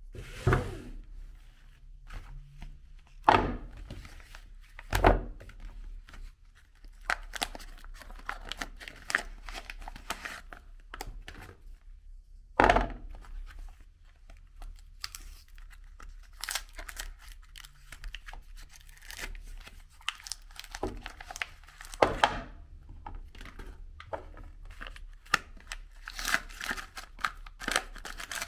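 Soap bar wrappers being torn open and crinkled by hand, a run of rustling and tearing with several sharp knocks along the way.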